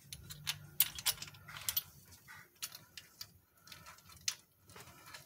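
Light metallic clicks and clinks, irregular and a fraction of a second apart, from steel rocker arms and their bolts being handled and set onto the pushrods of a Jeep 4.0 straight-six with the valve cover off.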